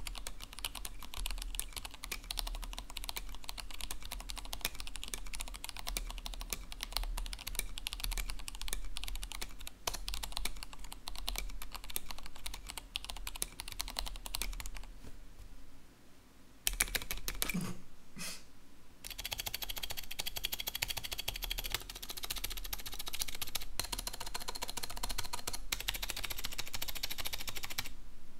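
Typing on a mechanical keyboard 3D-printed throughout, including its case, plate, switches, stabilizers and keycaps: fast, continuous key clacking, with a couple of short pauses a little past the middle.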